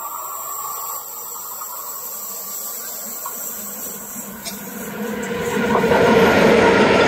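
Freight train hauled by two ČD Cargo electric locomotives approaching and passing close by. A steady hiss while it is still distant, then the rumble of the locomotives and wheels grows loud about five seconds in as the engines go past.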